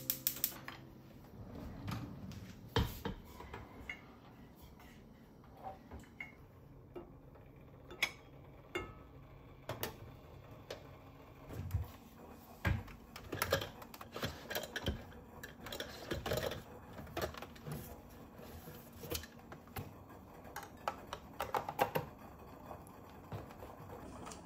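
Scattered light clicks, taps and clatter of kitchen things being handled: a drawer pulled open, and the wire beaters of a hand mixer being fitted near the end.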